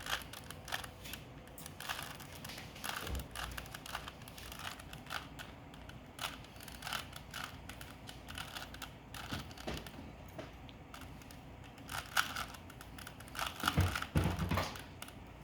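Rubik's cube being solved by hand: its plastic layers turned in quick runs of irregular clicks and rattles.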